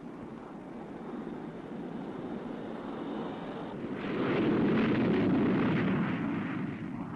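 A4D Skyhawk jet engine at full power for a catapult launch: a steady rushing noise with a faint high whine, which surges much louder about four seconds in and eases off near the end.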